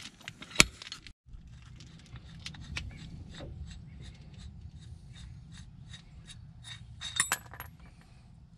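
A sharp metallic clink near the start as the slide hammer holding the freshly pulled wheel hub is handled. It is followed by a steady low background hum with many short high ticks and chirps, and a brief cluster of clicks about seven seconds in.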